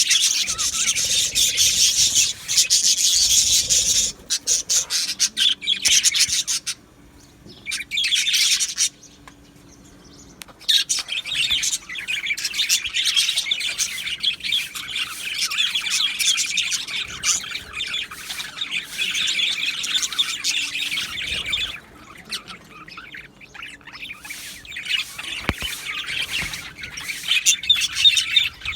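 Budgerigars in a colony chattering, chirping and warbling almost without a break, with two short lulls about seven and nine seconds in.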